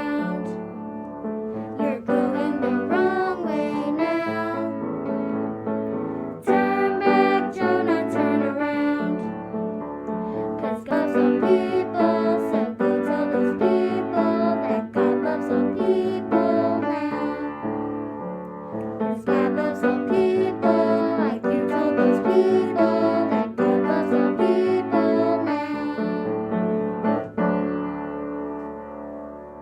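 Piano music playing the instrumental stretch of a song, a steady run of chords and melody, which stops abruptly near the end.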